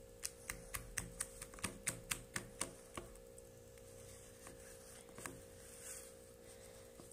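A quick run of light, sharp clicks or taps, about four a second for roughly three seconds, then a few scattered ones, over a steady faint hum.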